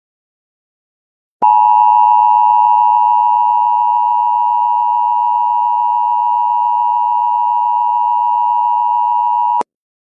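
Emergency Alert System attention signal: a loud, steady electronic alarm tone made of several pitches together. It starts about a second and a half in, holds for about eight seconds and cuts off abruptly, announcing a civil emergency message.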